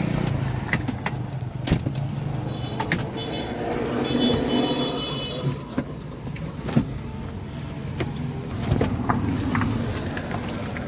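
Toyota Corolla moving slowly with a steady low engine hum and scattered knocks and rattles. A high-pitched tone sounds twice, a few seconds in.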